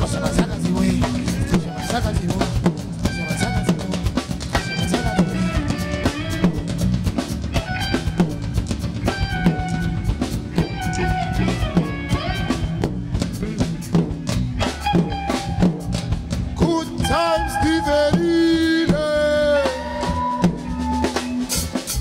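Live band playing: a drum kit's steady beat over electric bass guitar. A held, wavering melody line comes in near the end.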